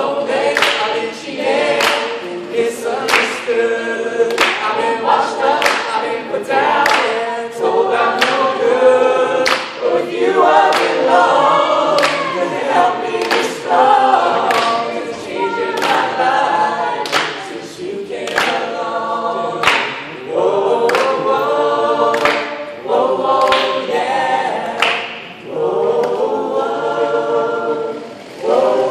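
Mixed-voice a cappella group singing in harmony, voices only with no instruments.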